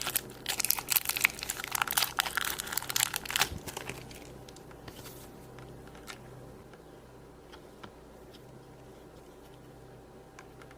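Crinkly packaging being handled and crumpled, as the pink modelling clay is unwrapped: dense crackling for about three and a half seconds, then it stops and only a few faint soft ticks follow.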